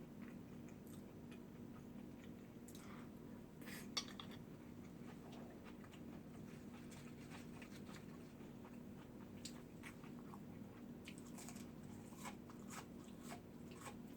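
A person chewing and biting food close to the microphone: soft crunches and clicks, with one sharper click about four seconds in, over a faint steady hum.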